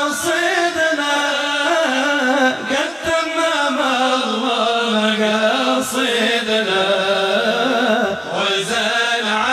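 Arabic devotional singing: a voice holding a long, wavering melismatic line without clear words.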